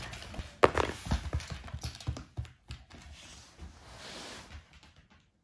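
Irregular soft taps and knocks with some rustling, the sharpest knock about two-thirds of a second in, dying away to quiet near the end.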